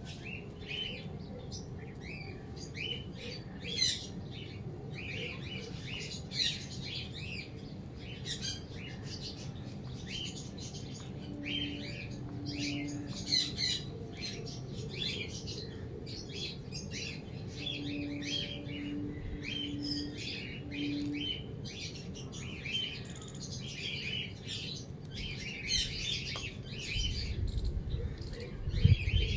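Many small birds chirping in quick, short, high calls that overlap without a break.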